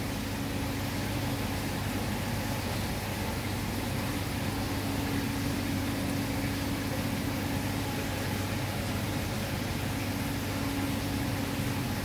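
Steady machine hum with a low tone and an even hiss running under it, unchanging throughout.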